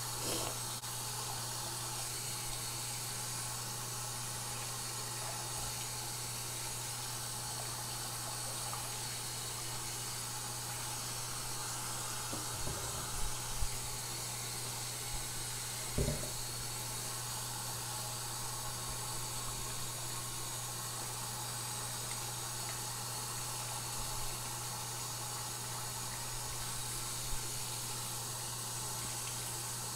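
Bathroom tap running steadily into a sink, the stream splashing over small glass pipes being rubbed clean in gloved hands. A few brief knocks about halfway through.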